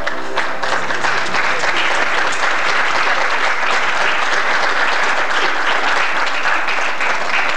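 Audience applauding, with the last notes of the song dying away in the first second or two.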